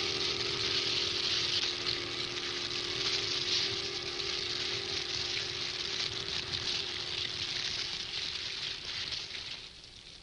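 Large bonfire of timber burning: a steady hissing crackle of flames that stops near the end.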